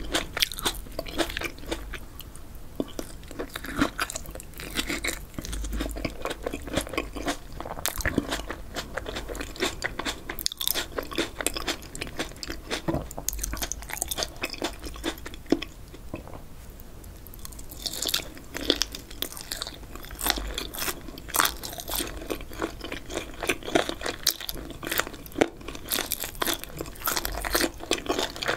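Close-miked chewing of spicy boneless chicken feet and cherry tomato: many sharp, crunchy bites of cartilage with wet chewing between them. The crunches thin out a little past the middle, then come thick and fast over the last ten seconds.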